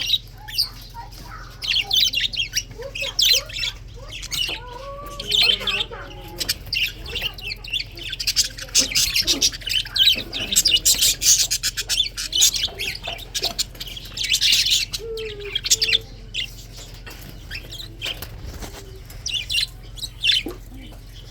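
Budgerigars chirping and chattering in a busy stream of short, high chirps and squawks, busiest in the middle, over a steady low hum.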